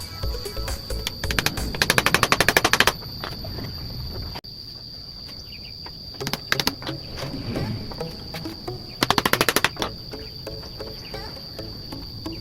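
Two bursts of rapid, evenly spaced clicking, about ten a second, each lasting a second or so, over a steady high insect trill.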